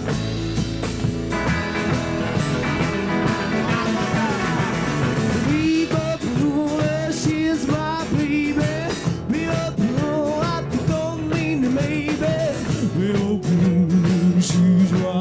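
Rock-and-roll cover played live by a street band: guitar and percussion, with a male lead vocal coming in about five seconds in.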